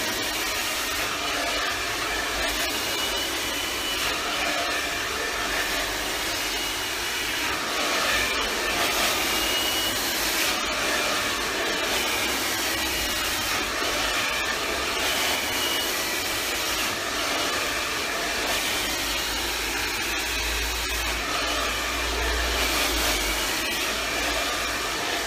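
Hand-held hair dryer running steadily, blowing on hair being styled over a round brush, with a faint wavering whistle in the rush of air.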